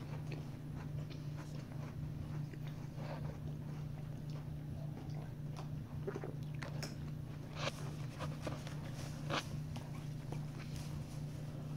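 Scattered light taps of fingertips on a tabletop, a child counting on her fingers while adding in her head, over a steady low hum.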